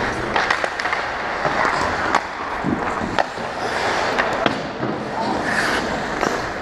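Ice hockey play: skate blades scraping the ice, with scattered sharp clacks of sticks and puck.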